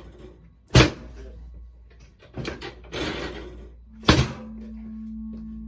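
Chiropractic drop table: the spring-loaded drop piece is thrust down and falls with a sharp clack, twice, about three seconds apart. A low steady tone comes in just after the second drop.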